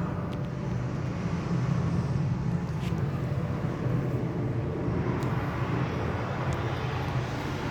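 Steady low rumbling hum of background noise, with a few faint clicks about three, five and six and a half seconds in.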